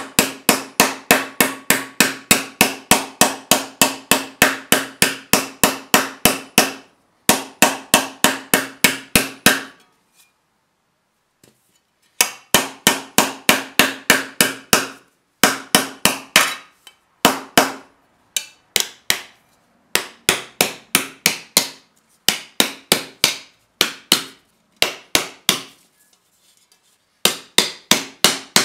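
Small hammer tapping thin copper sheet in quick, even blows, about four a second, each with a short metallic ring, as it raises a warty texture in the metal. The blows come in runs of several seconds with short pauses between.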